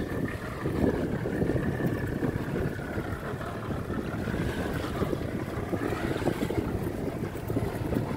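A small motorboat's engine running, its whine wavering up and down in pitch, under steady wind noise on the microphone.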